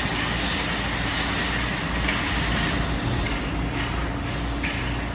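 Steady background din of an amusement arcade, with a faint constant hum running under it.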